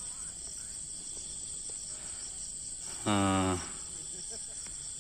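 Steady high-pitched chirring of crickets or similar field insects. About three seconds in, a man gives a short, flat-pitched voice sound lasting half a second.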